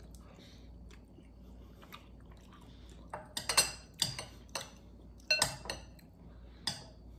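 Metal utensil clinking and scraping against a glass bowl of mac and cheese. It is quiet for the first few seconds, then about half a dozen sharp clinks follow over the second half.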